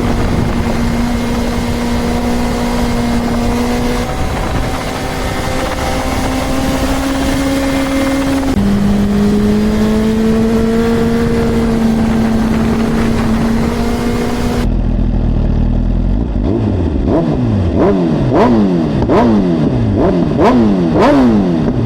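Sportbike engine running at a steady pitch that shifts up and down a couple of times, then, after an abrupt change in sound, a quick series of revs rising and falling about once a second.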